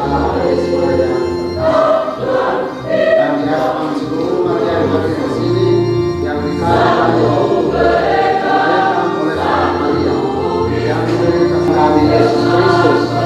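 Church choir singing a hymn in sustained phrases over a steady low accompaniment.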